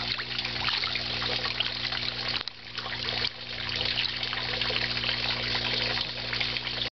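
Water trickling and splashing steadily into a small pond, with a steady low hum underneath; the trickle drops away briefly about two and a half seconds in.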